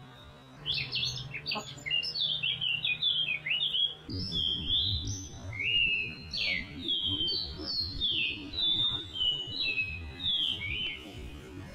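Songbirds singing: quick high chirps at first, then, from about four seconds in, longer whistled notes that slide down in steps, over a low background rumble.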